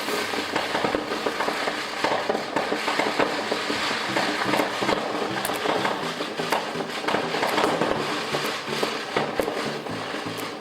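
Fireworks crackling and popping continuously, many rapid small bangs overlapping one another. Stepped steady tones run underneath, like background music.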